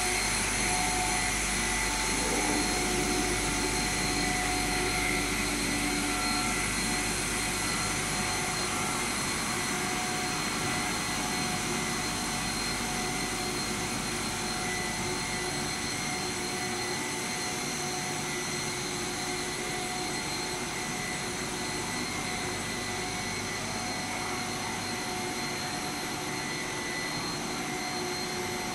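Solid-wall pipe extrusion line running: a steady machine noise of motors and pumps with several steady whining tones over it. A low hum fades about halfway through.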